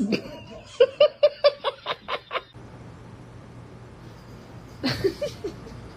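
A person laughing in a quick run of short pulses, about five a second, then a shorter burst of laughter near the end.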